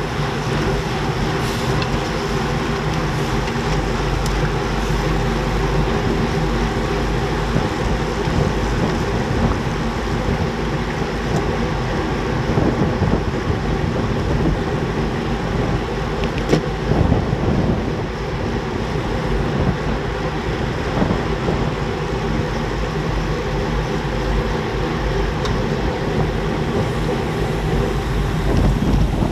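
Steady rush of wind over the microphone and the hum of tyres on asphalt from a road bicycle racing in a bunch at about 45–50 km/h.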